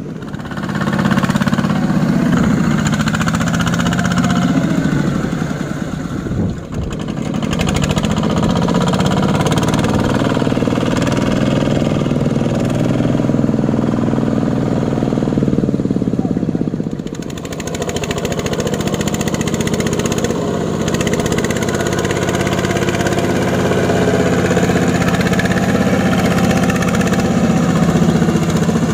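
Two-wheel walking tractor's single-cylinder diesel engine running steadily under load in deep mud, dipping briefly twice.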